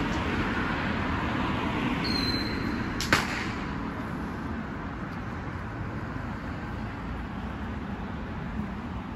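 A single sharp firework bang about three seconds in, just after a brief high whistle, over a steady background rumble of the outdoor crowd and traffic.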